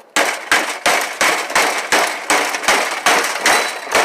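About a dozen sharp hammer blows, roughly three a second, striking a dishwasher motor assembly to break it loose from its plastic mounting.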